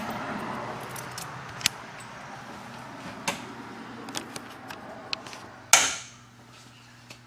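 A door swinging shut under its hydraulic door closer, with a few faint clicks, then one loud bang about six seconds in as it slams closed.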